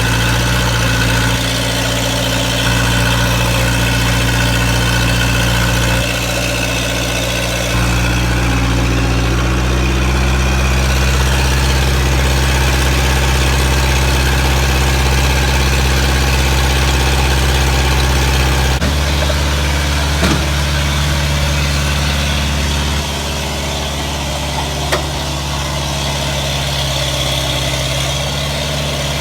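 Heavy diesel engine running steadily near idle. Its speed shifts up and down a few times, with a clear drop about two-thirds of the way in.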